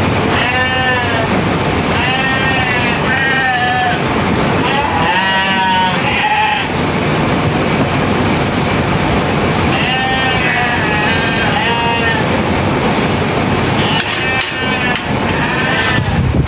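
Sheep bleating again and again in short, wavering calls, over a steady noisy background, with a pause of a few seconds midway.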